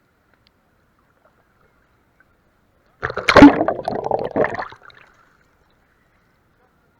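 Seawater splashing and sloshing close to the microphone for about two seconds, starting about three seconds in.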